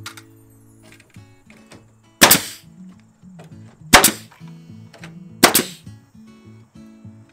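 Pneumatic framing nailer firing three nails into the bottom of a shed wall, each shot a sharp bang about a second and a half apart, with lighter clicks as the nailer is set against the board.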